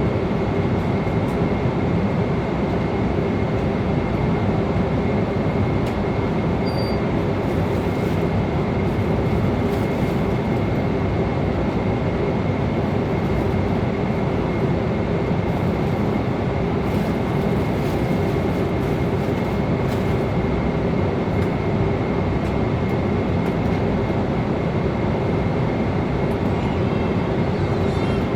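Steady roar of airliner cabin noise at altitude, a constant rush of engine and airflow noise with a low steady drone and a thin steady high whine over it. A few faint ticks near the end.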